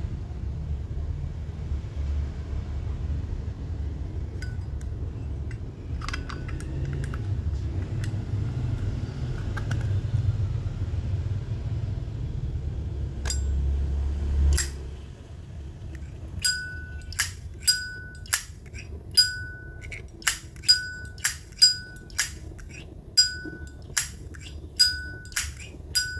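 A Zippo lighter's hinged metal lid flicked open and snapped shut again and again, each click followed by a short ringing ping. They come in quick succession, about one or two a second, from about halfway through. Before that there is only a low rumble and a few faint clicks of handling.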